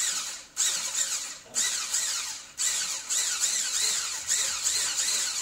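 Electric hand blender with a whisk attachment whirring in a bowl of cake batter. It runs in short pulses about a second apart, then steadily from about three seconds in, its pitch wavering as it churns the mix.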